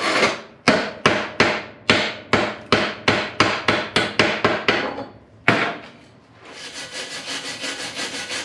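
Sharp hammer blows on steel, about three a second for some five seconds and one more just after, typical of a chipping hammer knocking slag off a fresh stick weld. From about six and a half seconds in, a steady scratchy scrubbing follows, as a wire brush cleans the weld.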